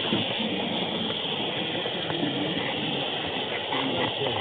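Steady whirring hiss of an N scale model train running along the track, as picked up by a small camera riding on board, with faint room voices underneath.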